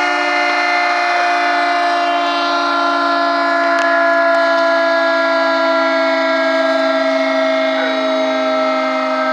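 Secomak electric siren sounding a steady multi-note tone during a siren test, its pitch sagging slightly over the seconds.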